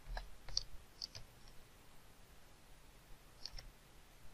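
Computer mouse clicking: a quick run of clicks in the first second and a half, then two more about three and a half seconds in.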